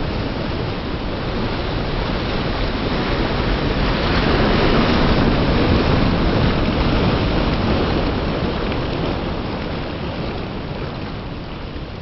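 Small ocean waves breaking and foaming surf washing right up over the microphone at the waterline: a rushing hiss that swells to its loudest about four to eight seconds in, then ebbs.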